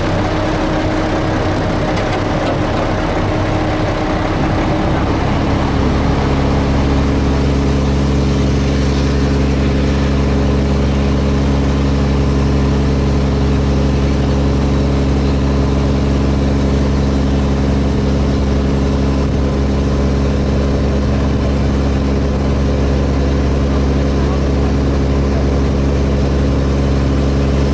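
River taxi's engine running as the boat travels along the river. About five seconds in the engine note changes and grows a little louder, then holds steady.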